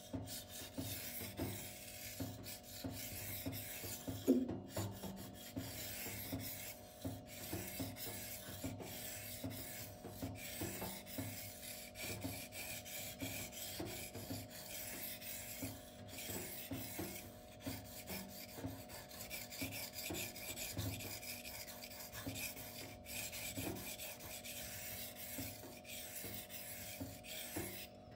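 Steel knife blade being stroked back and forth across a Shapton whetstone, an even run of repeated gritty scraping strokes while a burr is raised on the edge. One louder knock about four seconds in.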